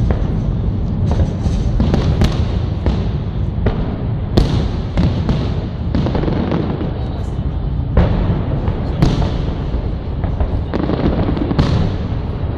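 Fireworks salute going off: irregular sharp bangs, about one or two a second, over a constant low rumble.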